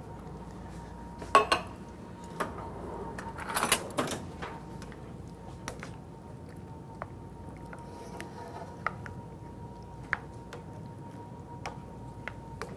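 A spatula knocking and scraping against a skillet as pineapple chunks and peppers are stirred into a thick sauce. There are a few sharp knocks, the loudest about a second and a half in, and a scraping clatter around four seconds in, then scattered light taps.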